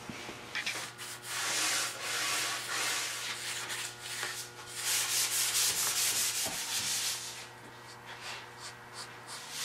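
A hand-held rag rubbing over the painted, stencilled wood of a chair's crest rail in quick back-and-forth strokes, working off a clouded old finish. The rubbing comes in two louder spells and eases off near the end.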